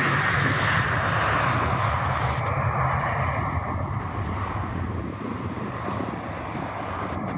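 Ryanair Boeing 737-800's CFM56 jet engines running at low thrust as it taxis. The engine whine and rumble fade gradually as the aircraft turns away.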